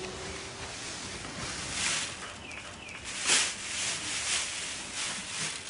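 Pitchfork scooping and tossing dry hay: a continuous dry rustle with several swishing surges, the loudest about three seconds in.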